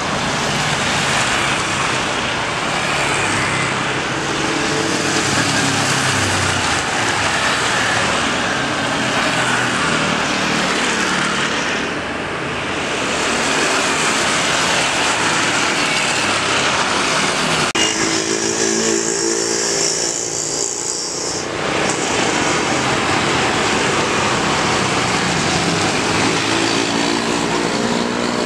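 Boeing 777-300ER's GE90 jet engines during its landing roll-out: a steady, wide rumble with faint falling whine tones. About two-thirds of the way through it changes to an Airbus A330-200's Rolls-Royce Trent 700 engines running on the runway, their hum climbing near the end as they spool up.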